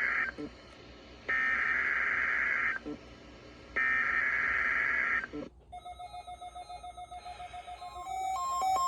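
NOAA Weather Radio SAME (Specific Area Message Encoding) header data bursts: the tail of one harsh, buzzy screech and then two more, each about one and a half seconds long with a second's gap between them. The header encodes the Required Weekly Test. After the last burst, a faint rapid pulsing starts and grows louder into an alternating two-tone beeping near the end.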